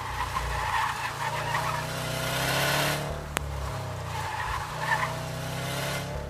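Car engine running under load while the tires squeal in hard cornering, the tires at the edge of grip. The squeal comes in two stretches with a short lull in the middle, and a single sharp click comes about three and a half seconds in.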